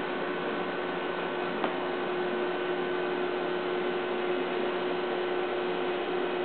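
Steady electrical hum and hiss with a constant pitch, and one faint click about a second and a half in.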